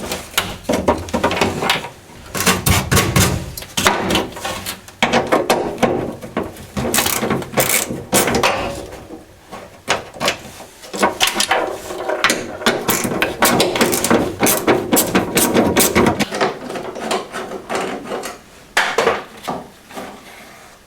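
Hand tools working the screws that hold a car's taillight units: runs of quick mechanical clicks and knocks, with pauses, easing off near the end.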